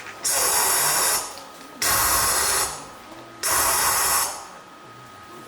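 A beatboxer's mouth making three long spray-like hisses, each about a second long, starting sharply and fading out, with short pauses between them.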